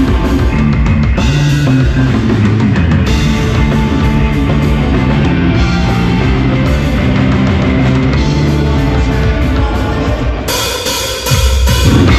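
Rock band playing loudly: drum kit, electric bass and guitar. Near the end the music briefly drops away, then the band comes back in louder.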